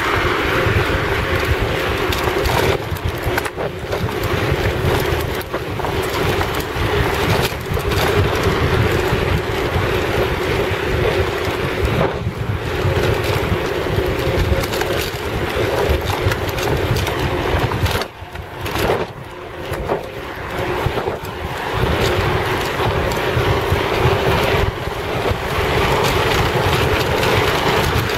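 Wind buffeting the microphone of a camera hung around a cyclist's neck while riding, with steady rumbling noise from the ride; the noise dips briefly about two-thirds of the way through.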